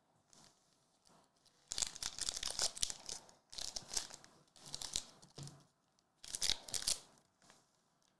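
Trading-card pack wrappers being torn open and crinkled by hand, in several crackly bursts, the longest about two seconds in and another near the end.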